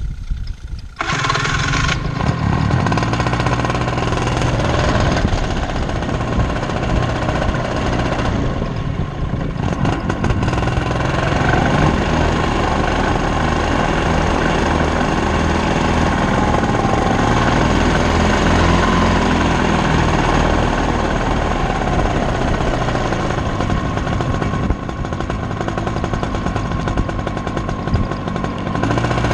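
Paramotor engine running close behind the listener, getting much louder and fuller about a second in, then holding a steady run with its pitch drifting up and down.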